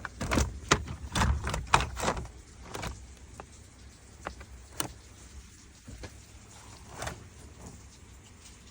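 Clicks, knocks and rattles of dashboard trim parts and tools being handled during the teardown of a pickup's dashboard: a busy flurry of knocks in the first couple of seconds, then occasional single clicks.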